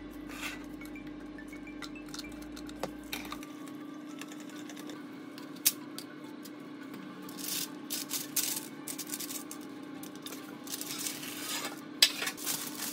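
Metal spoon scraping and clinking against a stainless mesh sieve and bowl as wet asparagus pulp is pressed and scraped out, with scattered sharp clinks that are busiest in the second half. A steady low hum runs underneath.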